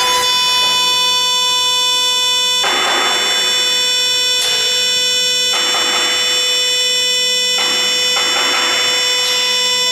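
CNC router spindle milling aluminium: a steady high-pitched whine runs throughout, and louder hissing bursts of cutting noise come and go several times as the end mill cuts into the bar.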